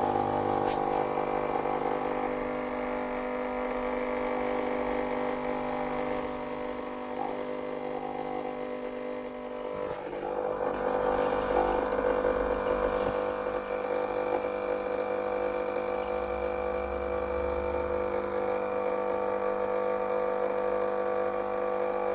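Gaggia Viva Deluxe espresso machine's pump running steadily, pushing a cup of water through the group head and portafilter to rinse them. Its tone shifts about halfway through.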